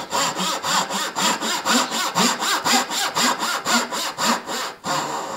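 A Japanese back saw cutting the pins of a dovetail joint in a hardwood board, at about two steady strokes a second. The strokes stop shortly before the end.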